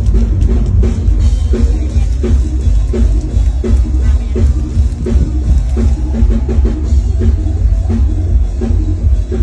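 Loud music with a heavy bass and a steady drum-kit beat.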